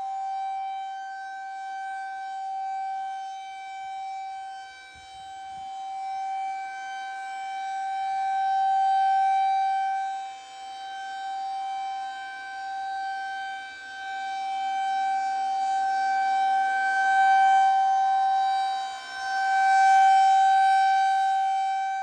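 Federal Signal 2001-SRNB rotating tornado siren sounding a single steady tone during its monthly test. The pitch holds constant while the loudness swells and fades several times as the rotating horn sweeps around.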